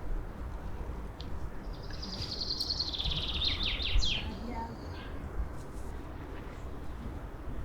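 A songbird sings one phrase of rapid, high trilled notes that fall away at the end, about two seconds into the clip. Steady low city background noise runs under it.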